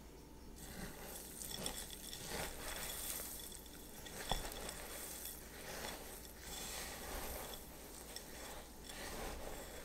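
Spatula folding a mix of seeds and chocolate chips into meringue in a glass bowl: uneven scraping and rustling, with one sharp click against the glass about four seconds in.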